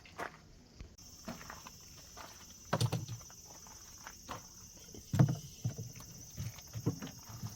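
A few scattered knocks and thumps, the loudest about three and five seconds in, over a faint steady high-pitched tone that starts about a second in.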